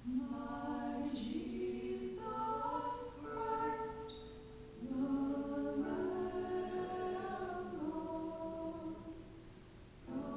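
Soprano and mezzo-soprano singing a sacred duet in harmony, in long held phrases with a short breath about four seconds in and another near the end.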